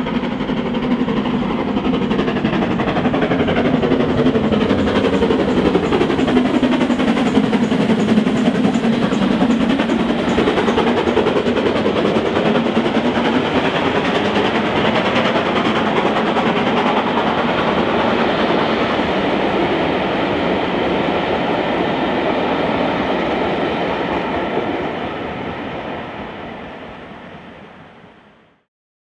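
GWR King class four-cylinder 4-6-0 steam locomotive No. 6024 King Edward I passing loudly under steam on a climbing bank. It is loudest about eight seconds in, then its carriages roll by and the sound fades away near the end.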